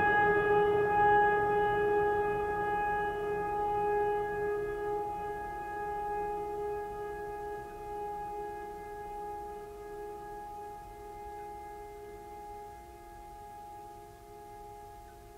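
Background music: a single held chord of several steady tones, slowly fading away over the whole stretch, like the last note of a track dying out.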